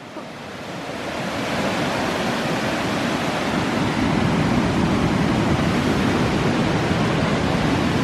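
Steady rushing of river water, swelling over about the first two seconds and then holding even.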